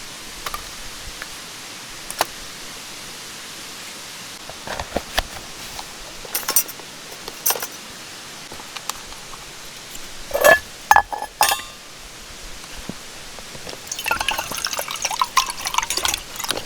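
Steady rush of a mountain stream, with scattered taps and clinks of camp cookware, a sharp ringing clink about ten seconds in, and liquid being poured near the end.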